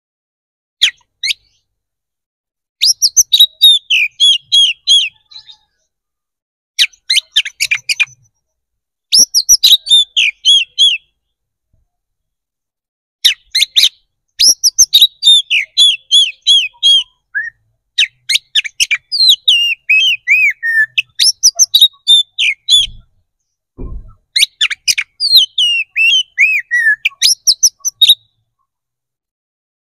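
Oriental magpie-robin singing its loud, aggressive fighting song: phrases of rapid high notes, many sweeping downward, each lasting one to five seconds, with short pauses between them.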